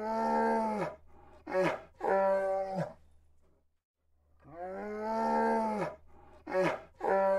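Brown bear calling: a drawn-out call of about a second, a short rising-and-falling call, then another drawn-out call, with the same sequence repeating about four and a half seconds later. A steady low hum runs under each sequence.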